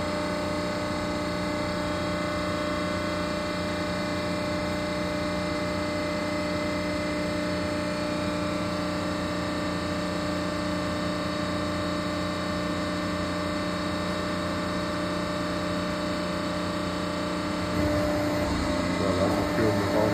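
DAVI 4-roll hydraulic plate roll running: a steady machine hum with several held tones, growing louder and rougher near the end.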